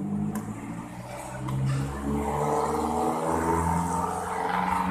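A motor vehicle engine running close by in street traffic, growing louder about two seconds in.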